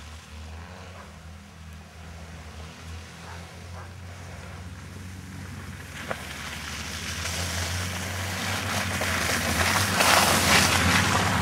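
SUV engine running as the vehicle drives through snow, with its tyres churning the snow. The sound grows steadily louder as the SUV draws close and passes near the end, with a short click about six seconds in.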